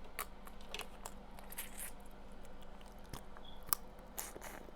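Faint, scattered small clicks and wet, squishy sounds of eating seafood boil up close: crab legs being handled and chewed, with one sharper click about three and a half seconds in.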